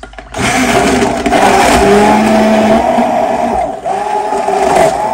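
An 800 W hand-held stick blender running in a glass jug, blending ice and pineapple with coconut milk and juice. The motor starts about half a second in, runs steadily and dips briefly near four seconds in.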